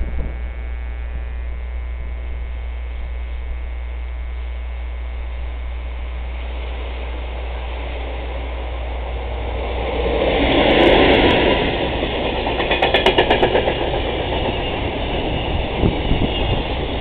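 Container freight train hauled by an electric locomotive approaching and passing close by. The train noise swells about ten seconds in as the locomotive goes past, followed by a quick rhythmic clatter of wagon wheels over the rail joints.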